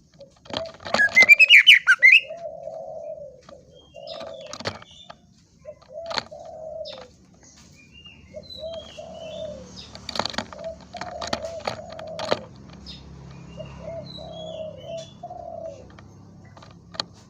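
Greater green leafbird (cucak ijo) singing: a loud burst of rapid rising chirps about a second in, then scattered sharp chips and short whistled notes, over a low hooting note repeated about once a second.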